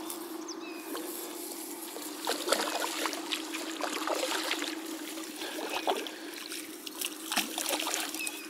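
Water splashing and trickling at the surface as a hooked carp thrashes close to the bank while it is played, in short irregular bursts over a steady hum.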